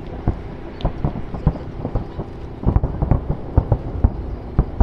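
Fireworks exploding overhead: a rapid, irregular run of bangs and pops, thickest about three seconds in.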